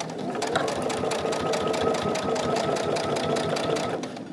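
Electric sewing machine stitching through thick layers of tapestry fabric and quilting cotton: a steady motor whine with rapid, even needle strokes, starting about half a second in and stopping about four seconds in.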